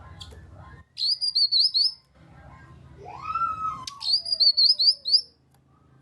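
Cucak kinoi, a leafbird, singing: two quick phrases of sharp, rapid chirping notes about three seconds apart. Between them, a lower whistle rises and then slowly falls.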